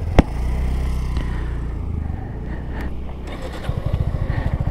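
Suzuki V-Strom SX 250 single-cylinder motorcycle engine running under the rider, with a sharp click just after the start. Its beat grows louder about three and a half seconds in.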